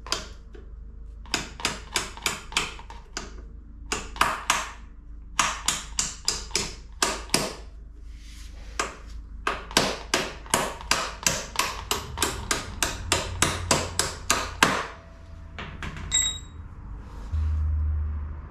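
Hammer tapping a steel drift pin through a dirt bike foot peg's pivot and return spring: many sharp metallic strikes in bursts, ending in a fast run of about four a second. A short ringing metal ping follows about 16 s in.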